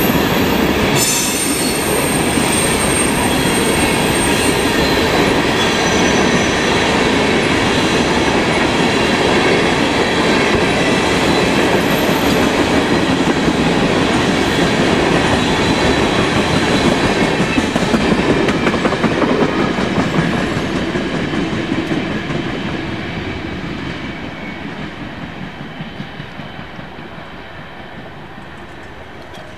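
Freight train's tank cars rolling past, steel wheels clattering on the rails. The sound fades steadily over the last several seconds as the end of the train goes by.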